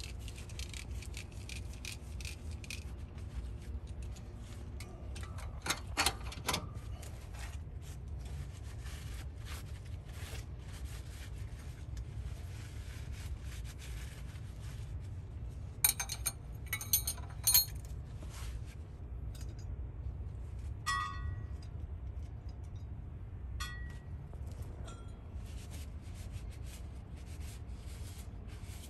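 Shop towel rubbing and wiping greasy metal semi-truck wheel-end parts, with a few sharp metallic clinks as parts knock together. The loudest is a cluster of ringing clinks about halfway through. A steady low rumble runs underneath.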